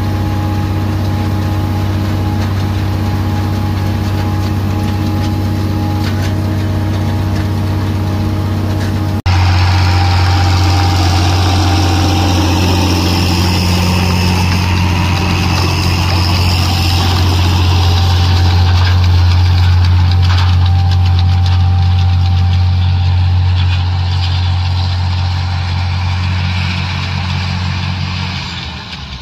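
White 2-105 tractor's six-cylinder diesel running steadily under load as it pulls a hay rake. After a cut about nine seconds in it is louder and closer, and it fades near the end as the tractor moves away.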